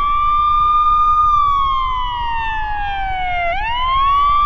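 Wailing alarm siren: one tone holds high, slides slowly down over about two seconds, then sweeps quickly back up near the end.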